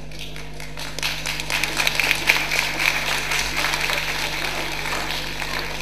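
Audience applauding: clapping starts about a second in, builds to its loudest around the middle, then thins out near the end.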